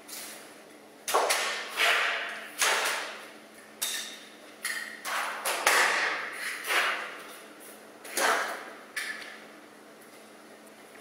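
A series of about ten irregular sharp knocks and clanks, each fading briefly, some with a light ring, between about one and nine seconds in.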